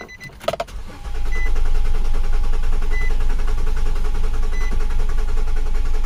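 A few clicks, then from about a second in the 2008 Nissan Quest's 3.5-litre V6 cranks steadily on the starter without catching: a crank-no-start. The fuel pump runs with it and is really loud. A dashboard chime beeps about every second and a half.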